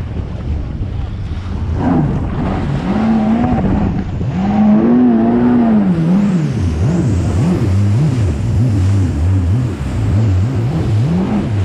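Yamaha VX Cruiser jet ski's engine revving up and down while riding through rough chop. From about halfway through, the pitch swings up and down about once a second, over a steady rush of wind and water.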